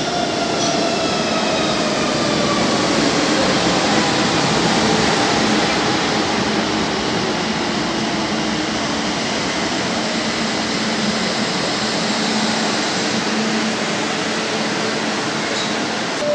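Barcelona Metro train pulling into the platform: a loud, steady rumble of the train running on the rails, with the whine of its motors falling slowly in pitch as it slows to a stop.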